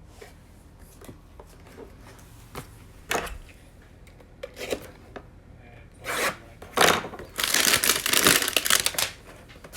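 Light handling clicks, then a trading-card hanger box and its wrapping being torn open, with loud crinkling and tearing about six seconds in that is densest for a second and a half near the end.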